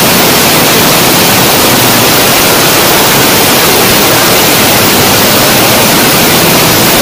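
Waterfall: white water rushing over rock steps close to the microphone, a loud, steady, even rush.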